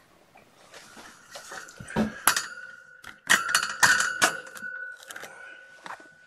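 Clattering metallic clinks and rattles as things are handled close by, thickest from about two to four seconds in, with a ringing tone that lingers and fades out near the end.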